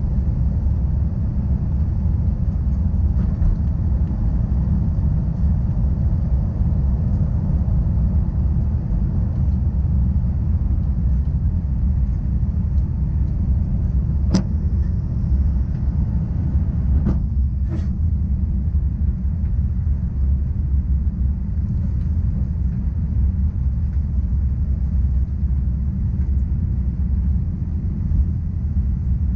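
Inside the cabin of an Airbus A350-900 at takeoff power: a steady low rumble of its Rolls-Royce Trent XWB engines and rushing air, through the last of the takeoff roll and into the climb-out. A few short sharp clicks about halfway through.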